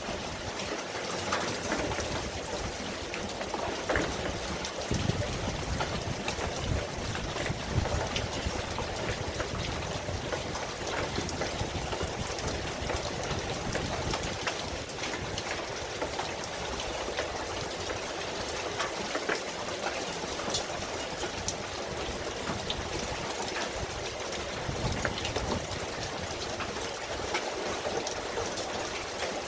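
Steady heavy rain, with many individual drops ticking and pattering close by over the even hiss of the downpour.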